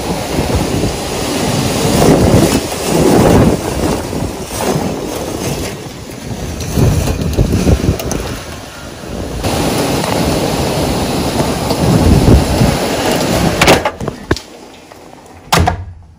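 Hurricane wind and heavy rain lashing the trees, surging and easing in gusts, with wind buffeting the microphone as a deep rumble. Near the end the noise falls away, with a couple of sharp knocks.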